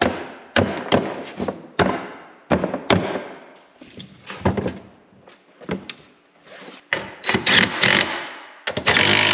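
Hard knocks and thunks, one or two a second, as the plastic snowmobile ski is handled and worked on. About seven seconds in, a cordless power tool starts running in short loud bursts against the ski.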